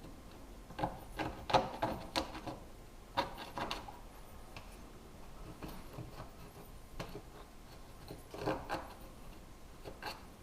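Irregular clusters of clicks, taps and rubbing from hand work, heaviest about a second in, again around three and a half seconds, and twice near the end.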